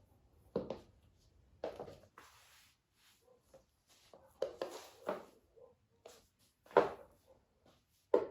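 Zara high-heeled shoes stepping: sharp heel taps at an uneven pace of about one a second, the loudest a little before seven seconds in, with softer scuffs between them.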